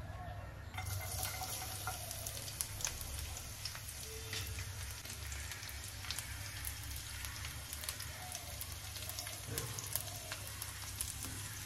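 Hot cooking oil sizzling and crackling in a nonstick frying pan as chopped garlic fries in it, with many small pops. The sizzle fills out about a second in.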